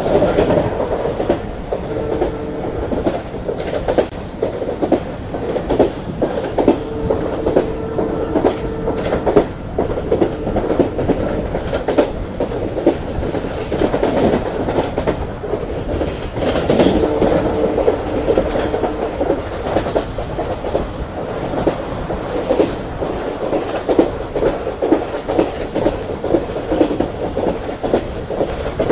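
Wheels of a speeding Indian Railways express coach running over the track, a steady rumble with a rapid clickety-clack of knocks over the rail joints. Faint steady tones come and go a few times.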